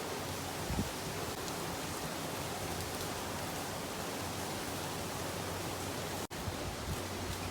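Steady rain falling, an even hiss with no distinct drops standing out. It breaks off for a split second about six seconds in, then carries on.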